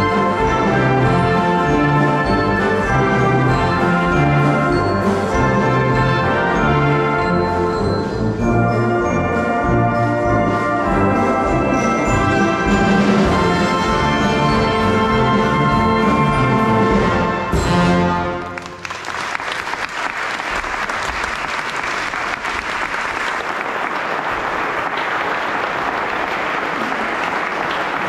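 Brass band playing the closing bars of a tune, which ends about 18 seconds in. Audience applause follows and continues steadily.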